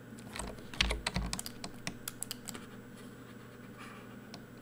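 Quiet clicking and tapping of a computer keyboard and mouse. There is a quick flurry of clicks in the first couple of seconds, then only a few scattered ones, over a faint steady hum.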